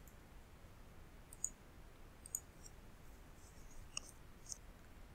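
Computer mouse clicks, a handful of short sharp clicks a second or so apart, over faint room tone.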